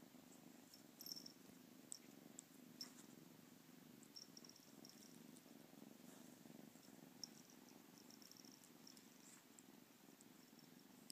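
A kitten purring softly and steadily, with a few faint clicks.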